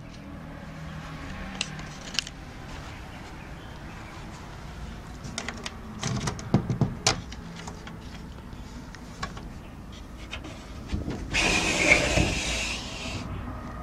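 Metal bolt latch on a wooden chicken coop door being worked by hand: a run of sharp metallic clicks and knocks. Near the end comes a rushing scrape of about two seconds as the door is handled open.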